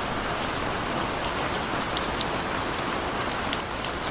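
Steady rain falling, a continuous even hiss with scattered sharp drop hits.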